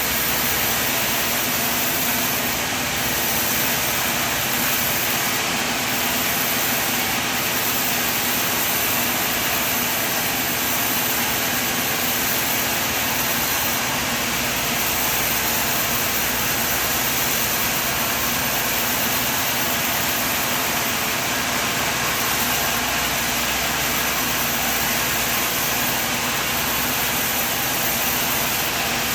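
Sawmill machine running steadily, a constant engine drone under an even hiss, with no break or change.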